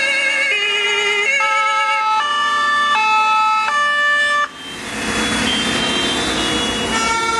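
German fire engines' two-tone sirens (Martinshorn) sounding together, each stepping back and forth between a high and a low tone. About four and a half seconds in they cut off abruptly, and a steady noisy rumble of the passing vehicles takes over.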